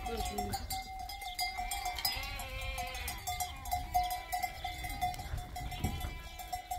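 Sheep bleating several times as they move about, with a steady high tone running underneath.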